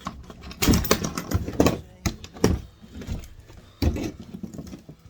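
Irregular knocks and clatter of hand tools and plastic and metal parts as an RC truck's suspension arm is worked apart, with several sharp loud knocks.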